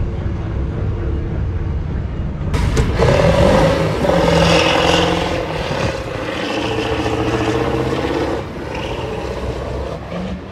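Semi truck's diesel engine at full throttle on a drag-strip run, loud from a couple of seconds in and easing off about eight seconds in. A lower rumble comes before it.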